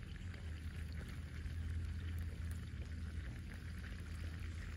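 Steady forest ambience in light rain: a constant low rumble with an even soft hiss of rain over it and a few faint ticks of drops.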